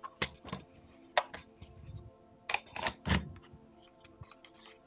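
Glock 43X pistol fitted with a micro wing being pushed into a Tier 1 Axis Elite Kydex holster, giving several sharp clicks and knocks of plastic against plastic as it seats in a tight fit.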